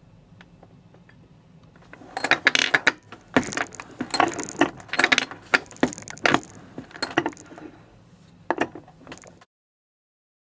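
A hand-operated reloading press being cycled: a run of irregular metallic clicks and clinks that lasts about seven seconds, then cuts off suddenly.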